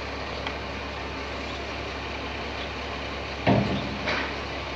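Tipper truck running steadily with its dump body raised. A loud thud comes about three and a half seconds in, and a lighter one half a second later.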